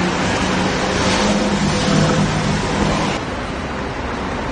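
A motor vehicle's engine running close by amid outdoor street noise, with a steady hum and hiss; the sound changes abruptly about three seconds in.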